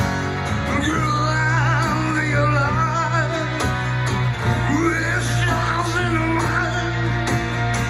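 Live band playing a slow rock ballad: sustained bass notes under a wavering melodic line with wide vibrato, between sung lines.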